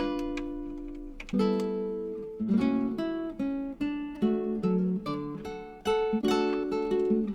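Background music played on acoustic guitar, a run of plucked and strummed notes and chords.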